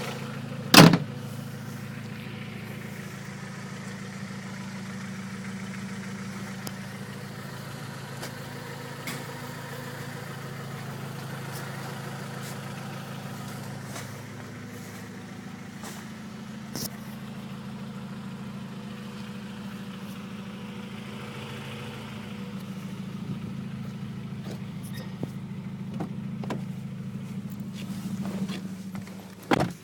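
Vehicle engine idling steadily, the engine that is said to be knocking. A sharp loud click sounds about a second in, and a loud short burst comes near the end.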